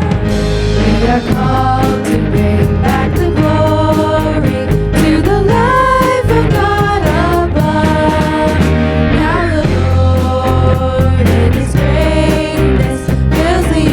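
Christian worship song played by a band, with a steady drum beat and a melody line gliding above it.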